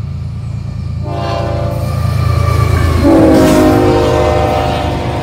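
Canadian National diesel locomotive leading a freight train past at close range, engine rumbling low, its air horn sounding a chord from about a second in. The horn drops in pitch as the locomotive goes by about three seconds in, and the sound is loudest just as it passes.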